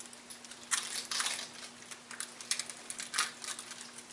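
Communion bread being broken by hand: irregular crackling and crunching snaps, busiest about a second in.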